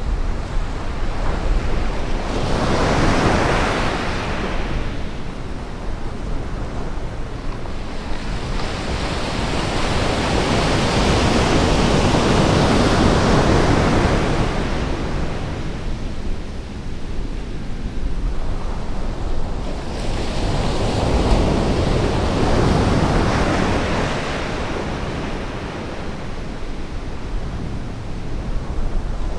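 Surf breaking and washing up a sand beach, swelling and easing three times as the waves come in, with wind rumbling on the microphone underneath.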